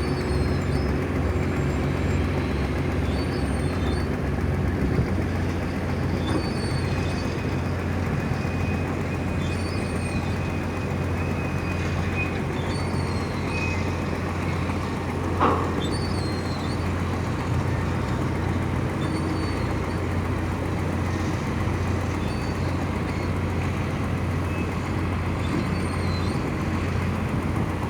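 Tugboat engine running steadily with a constant low drone, and one short knock about fifteen seconds in.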